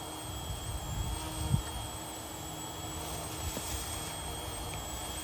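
Electric motor and rotors of a Yu Xiang UH-1 Huey remote-control helicopter whining steadily in flight, the pitch wavering slightly, with a low wind rumble on the microphone. A brief thump about a second and a half in.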